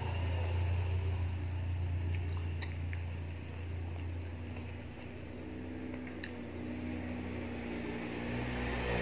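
A person chewing juicy sweet-orange segments, with a few faint wet mouth clicks, over a steady low hum.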